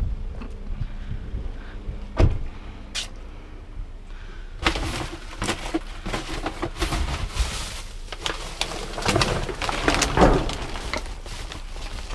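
A single thump about two seconds in; then from about four and a half seconds on, plastic trash bags crinkle and rustle as hands push them aside and dig through the dumpster.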